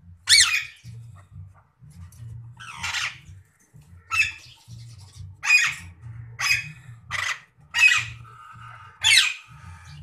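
Indian ringneck parakeets squawking: about eight short calls, spaced closer together in the second half, the first one the loudest, over a low steady hum.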